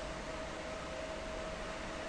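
A DB electric locomotive running alone, still in the distance and approaching: a faint steady running noise with a steady high whine held throughout.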